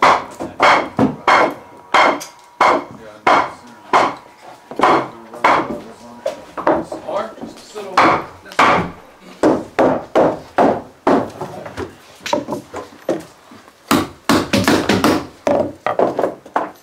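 Hammer striking wood over and over, irregular blows about one or two a second with a quicker run of strikes near the end: boards being nailed down.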